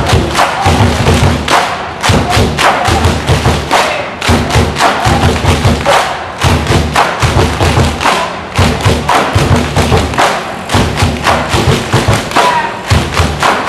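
Loud music driven by heavy, steady drum beats, about four to five thumps a second in phrases that break roughly every two seconds, accompanying a marching dance routine.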